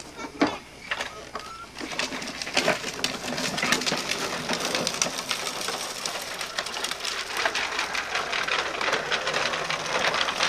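Hard plastic wheels of a low ride-on toy tricycle rolling over wet concrete: a steady dense rattle that starts about two seconds in.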